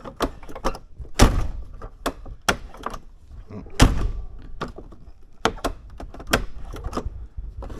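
Rear door latch of a 2nd-gen Dodge Ram 2500 clicking and the door thunking shut several times, with the heaviest thuds about one, two and a half, and four seconds in, as the just-repaired latch is tested.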